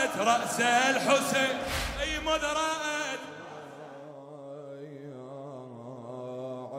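A man chanting a mourning lament loudly into a microphone, his pitch wavering from note to note. About three seconds in it cuts off and a quieter, slow, low male humming chant takes over.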